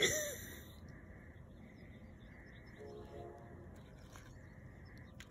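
Quiet outdoor background noise with faint, indistinct sounds in the distance.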